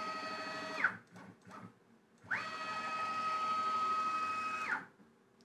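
Closed-loop stepper motor driving the Y axis of a Grizzly G0704 CNC-converted mill at about 150 inches per minute: a steady high-pitched whine that rises in pitch as the axis speeds up and falls as it slows. There are two moves, one ending about a second in and the other running from a little past two seconds to near five, with light clicks in between.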